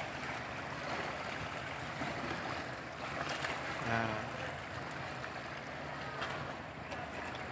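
Steady harbour background of water washing against the pier and ship, with wind.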